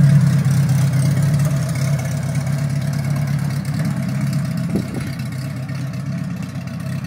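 A 1960 Morris Minor pickup's engine running as the truck drives off, growing gradually quieter as it pulls away.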